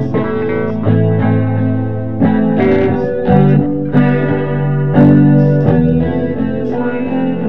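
Improvised multi-tracked instrumental blues guitar jam: several overdubbed guitar parts playing a run of plucked notes and chords, with some effects on the sound.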